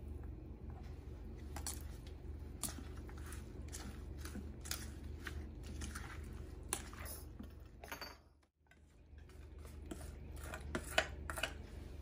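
Wooden spatula tapping and scraping against a stainless steel mixing bowl as a noodle salad is tossed, in scattered light clinks, with a few louder knocks near the end. A steady low hum sits underneath and cuts out briefly a little past the middle.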